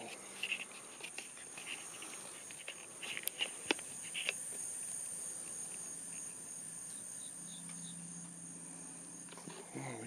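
Steady high-pitched chorus of insects with a faint pulsing beneath it. A handful of sharp clicks and short rustles break in during the first few seconds.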